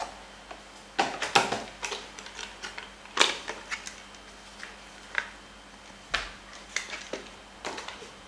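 Retail CPU packaging handled, the plastic processor container clicking and tapping: scattered sharp clicks at irregular intervals, with a cluster about a second in and a louder click about three seconds in.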